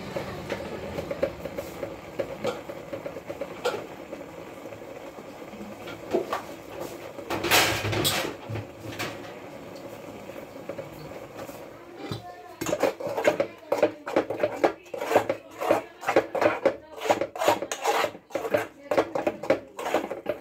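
Metal spoon stirring and scraping in a steel pot on a gas stove: a quick, regular run of scrapes about two a second through the second half. Before that a steady low background, with a brief loud hiss about seven and a half seconds in.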